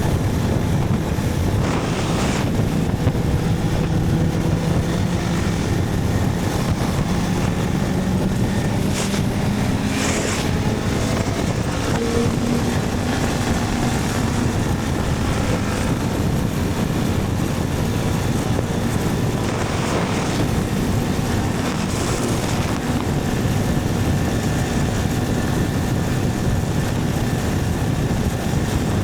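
Motorcycle running at road speed, its engine note shifting slightly in pitch, under steady wind noise on the microphone.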